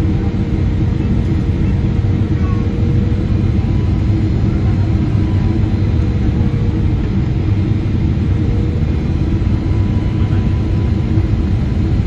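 Steady low rumble of a Boeing 777-300ER airliner's airflow and engine noise, heard from inside the passenger cabin, with a faint steady hum over it.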